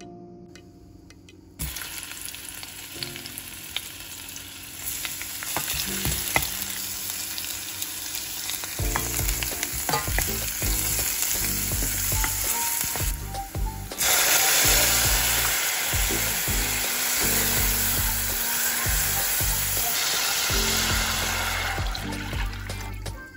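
Sliced onion, garlic and ginger sizzling in hot oil in a stainless steel pot while being stirred with a wooden spatula. The sizzle starts about a second and a half in and stays loud and even.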